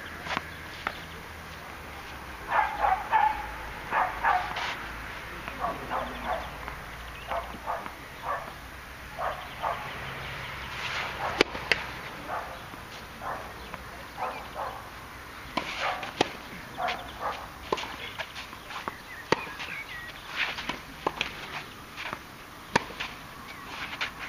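Tennis being played on a clay court: a scattered run of short scuffs, thuds and ball bounces, with a few sharp racket-on-ball strikes.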